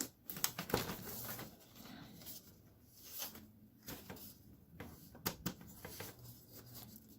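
Faint scattered clicks and taps of a PC case and its dust filter being handled, with a few sharper clicks about five seconds in.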